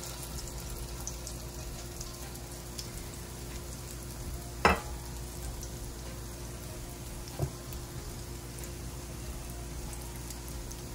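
Shami kababs shallow-frying in oil in a frying pan: a steady low sizzle with faint crackles. A sharp knock about halfway through, and a softer one a few seconds later.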